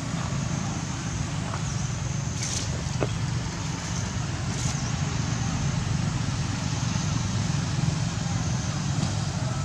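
Steady low outdoor rumble, with a few faint clicks about two and a half and four and a half seconds in.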